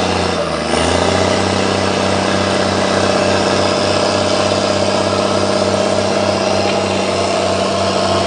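Forestry skidder's diesel engine running under load while dragging a log. Its sound dips briefly, picks back up with a short rise in pitch about a second in, and then holds a steady, pulsing run.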